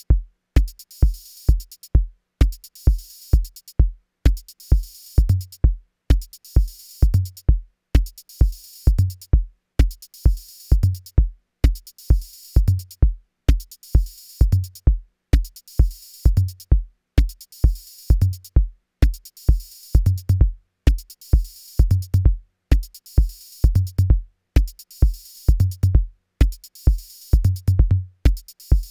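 Electronic music on a drum machine: a steady kick drum about twice a second under a hissing high layer that pulses on and off, with a low bass line coming in about five seconds in.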